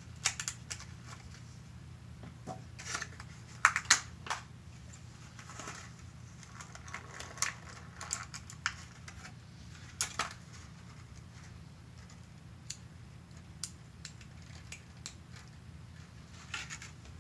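Irregular clicks, taps and short crinkles of hands handling plastic toy packaging and a small plastic Bakugan toy, the loudest a pair of sharp clicks about four seconds in, over a steady low hum.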